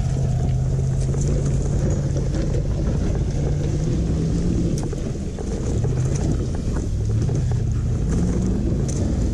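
Fourth-generation Toyota 4Runner's V8 engine pulling hard under load up a steep dirt hill climb, its note dipping briefly about five seconds in and rising again near the end.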